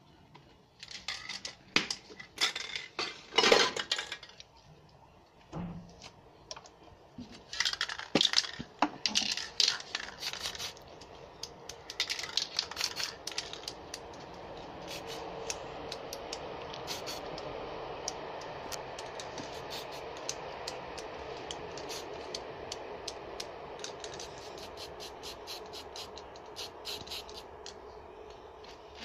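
Aerosol spray paint cans being handled and shaken: irregular bursts of sharp clicks and rattles from the cans' mixing balls and from cans knocking together. From about twelve seconds in a steady background noise runs under the clicks.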